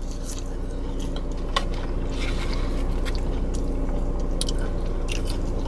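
A person biting and chewing food close to the microphone, with scattered small crunches, over a steady low hum.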